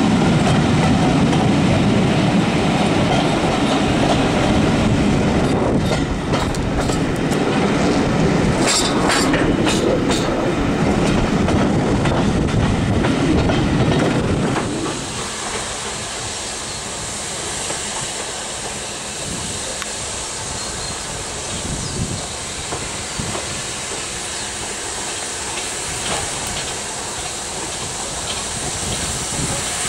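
Passenger carriages running on the rails, heard from an open carriage window: wheels rumbling and clattering over the rail joints. About halfway through, the low rumble drops away and the sound goes quieter to a steady hiss.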